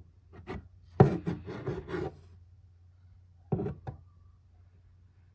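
Handling noise as an M1 Garand's trigger group is worked out of its wooden stock: metal scraping and rubbing against wood with clunks, loudest in a run of about a second starting a second in. Two short knocks follow past the middle.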